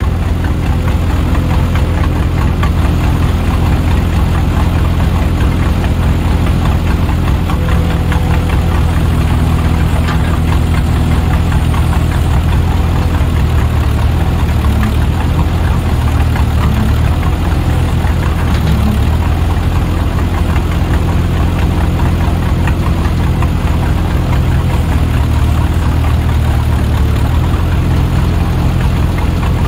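Vehicle engine running steadily at an even speed, with no revving.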